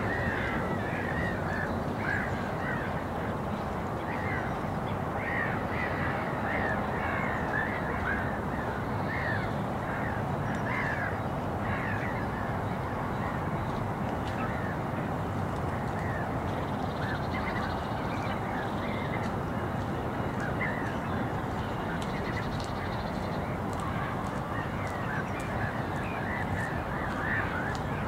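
Outdoor park ambience: many short, high bird calls repeating throughout, a flock calling back and forth over a steady low rushing background.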